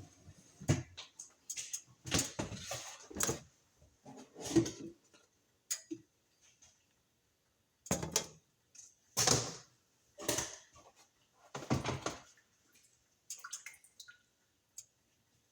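Kitchen handling noises: a series of short knocks, clinks and scrapes of dishes and utensils, irregularly spaced, with a pause in the middle.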